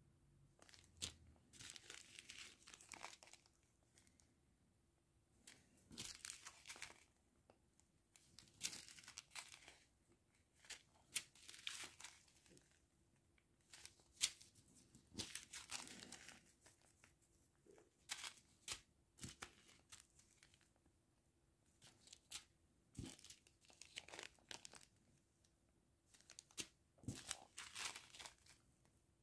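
Small zip-lock plastic bags of round diamond-painting drills crinkling as they are handled, in short irregular rustles with quiet pauses between them.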